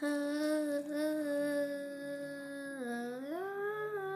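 A child's voice singing a wordless melody. It holds one long note, dips briefly about three seconds in, then rises to a higher note.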